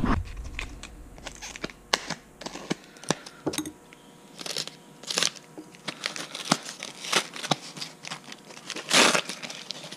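Hands working with small carburetor parts and a paper-and-plastic gasket packet: scattered light clicks, scrapes and crinkles, with one longer rustle about nine seconds in.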